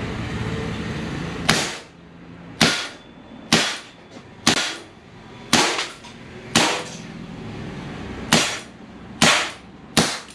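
Umarex Walther CO2 air pistol firing nine sharp shots about a second apart, with a longer pause before the last three.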